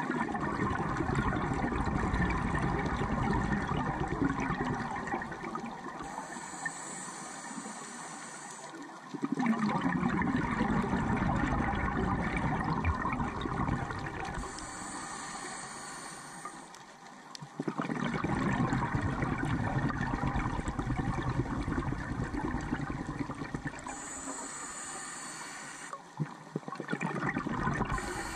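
A scuba diver breathing through a regulator underwater: long stretches of exhaled bubbles gurgling past the housing alternate with shorter, high hissing inhales. There are about three full breaths, with a fourth exhale starting near the end.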